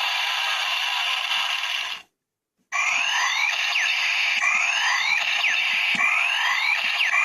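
Electronic sound effects from a Kamen Rider Drive DX toy's small speaker: a dense noisy burst for about two seconds, a brief silent gap, then a looping effect of falling and rising electronic swoops repeating about every second and a half.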